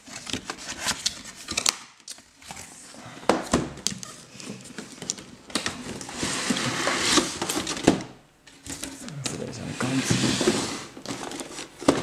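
Cardboard collector's box being opened and its plastic-wrapped inner tray handled: crinkling and rustling of plastic packaging, with scattered clicks and knocks of card and plastic. The rustling comes in two longer stretches, about six seconds in and about ten seconds in.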